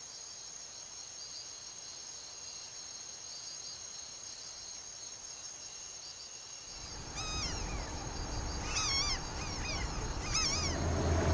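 Steady high-pitched buzzing of tropical forest insects. About seven seconds in the background grows louder and a string of short, rising-and-falling bird calls comes in. Near the end a boat engine's low steady hum starts.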